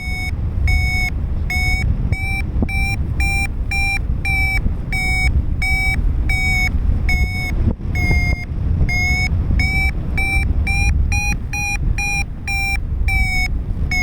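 Paragliding variometer giving its climb tone: short repeated beeps, about two a second, that quicken and rise slightly in pitch near the end, signalling the glider is climbing in lift. A steady rush of wind on the microphone runs underneath.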